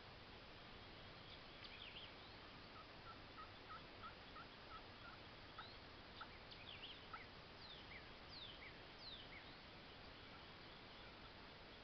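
Faint wild turkey calling: a run of short yelps at about three a second. Scattered higher, thinner chirps follow.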